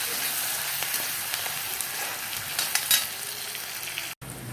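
Sliced onions, green chillies and ginger-garlic paste sizzling in hot oil in a kadai, stirred, with a few clicks of the utensil against the pan about two and a half to three seconds in. The sound cuts out briefly near the end.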